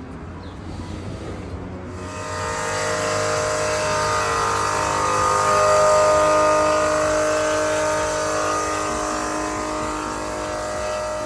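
A motor vehicle passing by: a dense engine-and-tyre sound that starts about two seconds in, swells to its loudest midway and fades away near the end.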